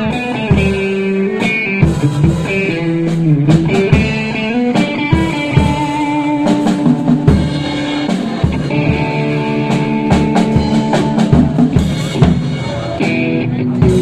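Live band playing: an electric guitar through an amplifier plays sustained melodic notes and chords over a drum kit keeping the beat.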